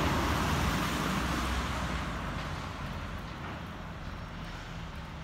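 A car driving past on a wet road, its tyre and engine noise loudest at first and fading over the first few seconds as it moves away.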